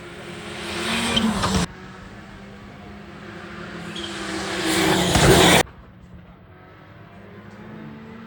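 Rally cars running flat out on a special stage: engine noise builds loudly as a car approaches, then is cut off abruptly. This happens twice, about a second and a half in and again about five and a half seconds in. Between the passes a car is heard more faintly.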